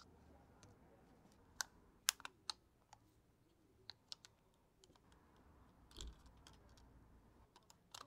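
Faint, scattered small clicks and taps of hand tools and small parts against an opened tablet's frame and internals during disassembly, irregular and a few at a time, with one softer bump about six seconds in.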